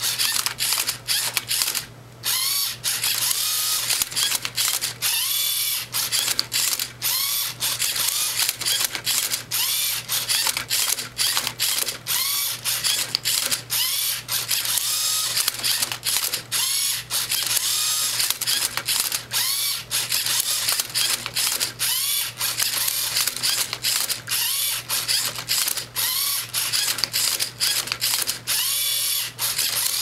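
Lego Mindstorms EV3 MindCuber robot solving a Rubik's Cube: its servo motors whine in quick spurts that rise and fall in pitch, several a second, as the plastic gears and arm flip the cube and turn its tray, with clicks and clatter of the Lego parts and cube between moves.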